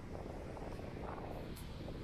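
Outdoor ambient noise: a low, uneven rumble that swells and fades.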